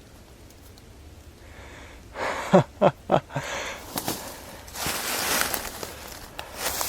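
Footsteps crunching through dry leaves in repeated bursts from about four seconds in. Before that, a few short, heavy breaths or exhalations come about two to three seconds in.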